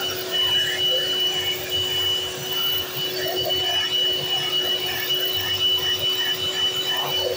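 Electric hand mixer running steadily, its beaters whipping a thick cream mixture in an aluminium bowl, with a steady motor whine.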